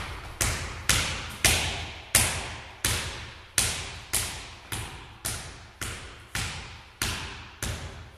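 A ball dribbled by hand on a wooden gym floor: about thirteen steady bounces, a little under two a second, each ringing on in the hall.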